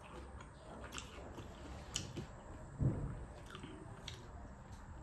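A person chewing food close to the microphone, with light clicks of fingers mixing rice on a plate. A soft thump comes about three seconds in.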